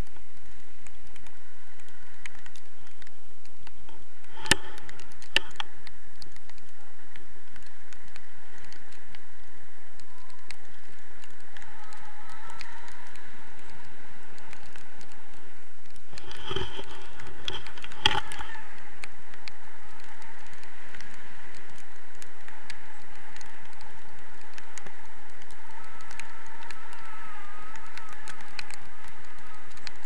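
Wind noise on the microphone of a tandem paraglider's boom-mounted action camera in flight: a steady rush with rapid light crackling, and a few sharp knocks, the first about four seconds in and the loudest near eighteen seconds.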